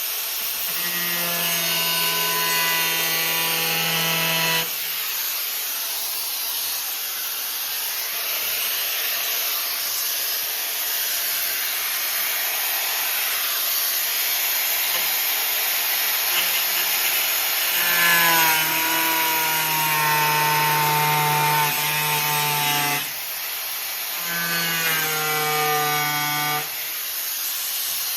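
Power tool cutting or grinding steel tube: a steady harsh hiss throughout, with a motor whine that comes in three times, the first lasting about five seconds and the others running from about 18 s and again around 24 s.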